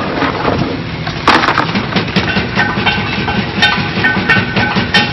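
Small hard blocks clattering and knocking against each other and a plastic crate as a hand stirs through them, with a burst of clatter about a second in. Under it, a machine runs with a fast, even rhythm, and a repeating higher tone joins from about two seconds in.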